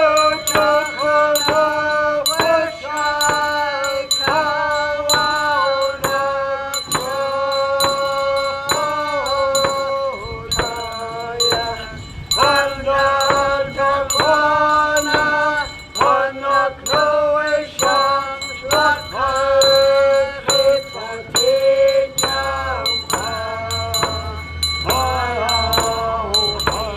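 A voice singing a song with long held notes that slide between pitches, over a steady shaken-percussion beat.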